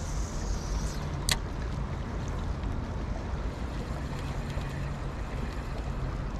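Steady rushing of the river current, with a single sharp click about a second in.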